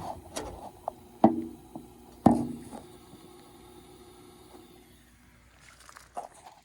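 Three sharp knocks about a second apart, with a short ring, from work at an old standing-pilot gas furnace, over a faint steady hum that fades away; a few faint ticks follow near the end.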